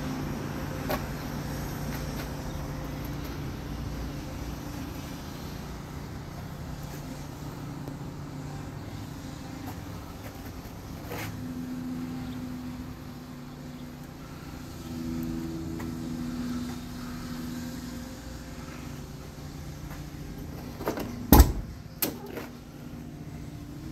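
A low steady hum, then a short run of sharp clicks and a loud clunk about 21 seconds in: the car door's latch releasing and the door opening.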